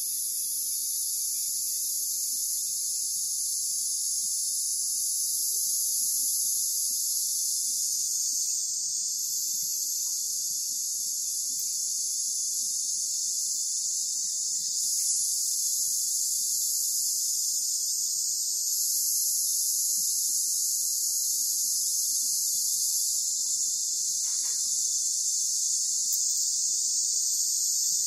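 Steady, high-pitched drone of an insect chorus, unbroken throughout.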